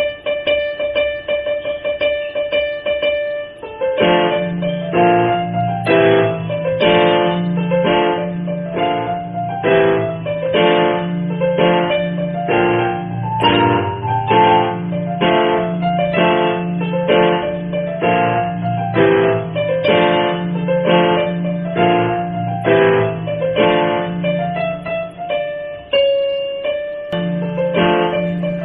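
Background piano music. A held chord sounds for the first few seconds, then repeated notes play in a steady beat over a low bass line.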